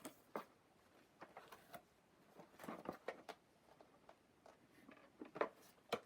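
Handling noises from a toy's cardboard box being picked up and turned over: scattered light knocks, taps and rustles, with small clusters about three seconds in and again near the end.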